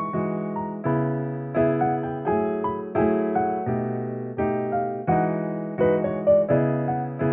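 Background piano music: chords struck at a steady, even pace.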